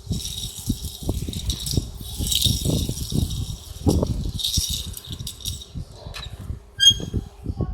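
A Tomica die-cast toy car and its small cardboard box being handled: rapid rattling and small knocks, with bursts of packaging rustle and a short squeak near the end.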